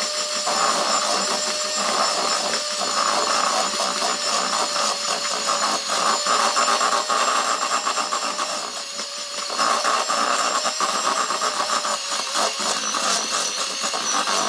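Electric hand mixer running with a steady whine, its beaters churning and clattering through stiff, crumbly cookie dough in a plastic bowl; the motor cuts off suddenly at the end.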